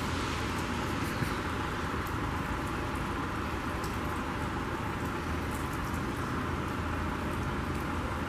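Steady rain outdoors: an even hiss of rainfall, with a few faint sharp ticks of drops.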